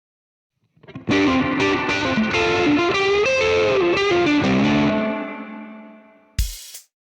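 Distorted Les Paul-style electric guitar through an amp plays a blues phrase with bent notes, its last note ringing out and fading. Near the end a single drum hit sounds as the drum kit comes in.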